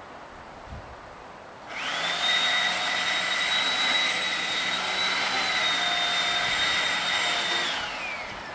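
A motor whine that starts abruptly a couple of seconds in and rises quickly to a high steady pitch. It runs evenly for about six seconds, then drops in pitch and winds down near the end.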